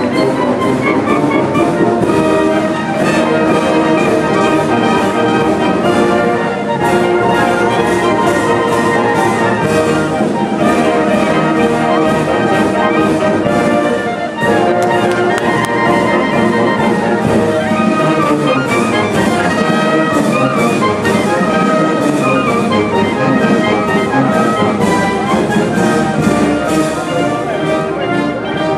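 Brass band playing, with trumpets and trombones over a steady drum beat; the music dips briefly about halfway through.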